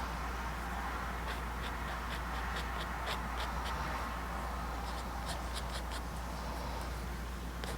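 Short, irregular scratching strokes of a painting tool on cotton watercolor paper, heard between about one and six seconds in, over a steady low hum.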